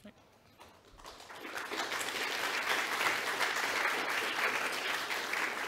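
Audience applauding. The clapping starts about a second in, builds quickly and is thinning out near the end.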